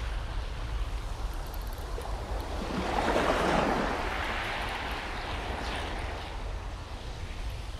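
Sea waves breaking and washing, one swelling to its loudest about three seconds in and then fading, over a steady low rumble of wind on the microphone.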